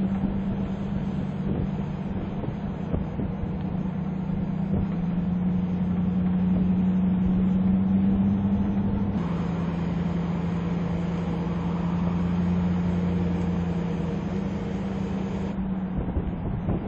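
2011 Ford Explorer SUV driving at a steady cruising speed: a steady engine hum over tyre and road noise. The engine note steps down to a lower pitch about nine seconds in.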